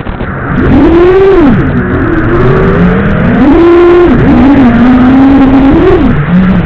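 FPV quadcopter's brushless motors and propellers, heard through the onboard microphone, whining and shifting pitch with the throttle: a rise and fall about a second in, a higher stretch around four seconds, then lower and dipping near the end.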